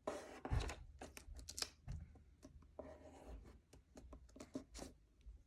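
Sheet of printer paper being folded and creased by hand: faint, scattered rustles and short scrapes as fingers run along the fold.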